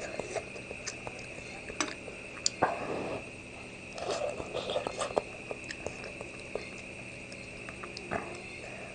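A person eating duck blood and enoki mushrooms in broth with chopsticks and a metal spoon: slurping and chewing, with small clicks of the utensils. There are louder slurping stretches about two and a half seconds in and again about four seconds in.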